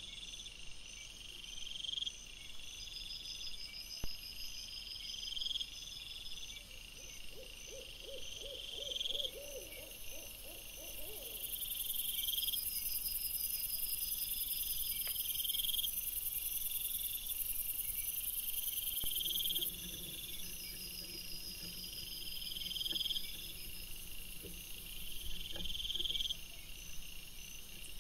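Night insects chirping steadily, about one chirp a second. Between about seven and eleven seconds in, a quavering animal call made of rapid pulses is heard.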